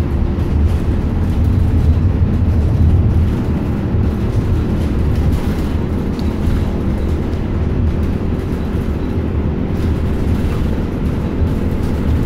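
Cabin noise of a moving city bus heard from a passenger seat: a steady low drone and rumble of engine and road, with a faint steady hum above it.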